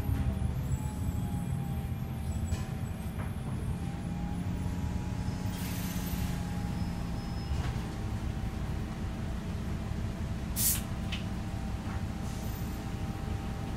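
City bus running low and steady in slow traffic, heard from inside the cabin, with a short, sharp air-brake hiss about ten and a half seconds in and a smaller one just after.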